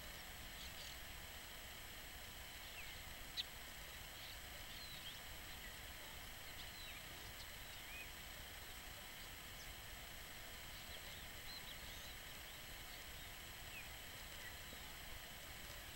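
Faint, brief chirps and short whistled calls of small birds, scattered and irregular, with one sharp click about three and a half seconds in.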